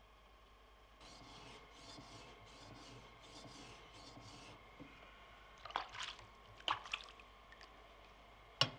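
Japanese sword blade being polished on a wet whetstone: a run of short, wet scraping strokes, followed by a few sharp knocks, the loudest near the end.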